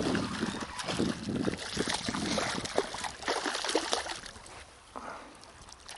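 Water splashing and sloshing in irregular surges with scattered clicks as a hooked mullet is brought in to the shore on a lure, easing off near the end.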